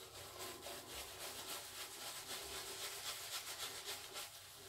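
Semogue 1305 boar-bristle shaving brush working lather over a stubbly cheek and jaw: a faint, bristly rubbing made of quick, even strokes.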